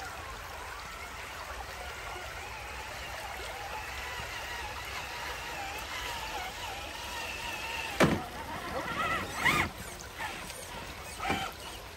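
Traxxas TRX-4 RC crawler driving through a shallow creek: its electric motor and gears whine, rising and falling with the throttle, over the steady running of the stream. Three louder splashes come in the last four seconds.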